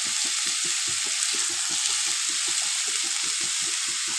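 Onion, cauliflower and carrot frying in oil in a steel wok, a steady sizzling hiss, with a fast, even low flutter underneath.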